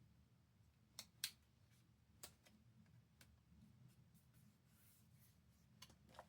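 Near silence broken by a few faint, sharp clicks and taps, the loudest about a second and a quarter in.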